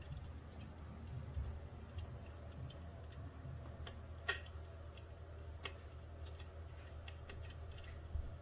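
Electric fireplace insert's built-in simulated fire-crackling sound: faint, irregular crackles and pops, a sharper pop about four seconds in and another near six, over a steady low hum.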